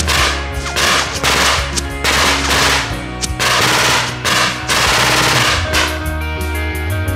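Bursts of automatic gunfire from blank-firing WW2-era weapons, coming in several rapid strings with short gaps, over rock music with a steady bass. The firing thins out near the end as the music comes forward.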